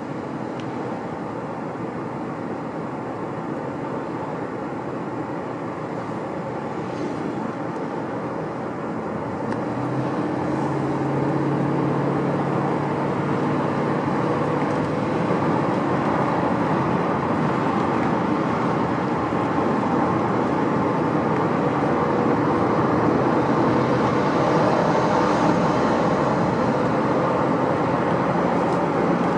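A car running or driving, with steady engine and road noise that grows louder about ten seconds in, where a low steady hum joins it. This is the noise the owner finds strange.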